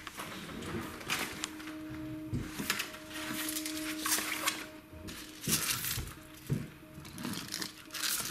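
Repeated bursts of rustling and clicking from a bird of paradise plant's stiff leaves and stem being handled, over faint background music with long held notes.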